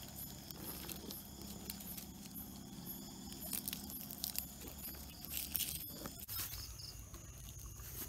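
Night insects keeping up a steady, thin, high chorus, with scattered rustles and crackles of dry leaves and twigs from movement through the leaf litter and a few sharp clicks.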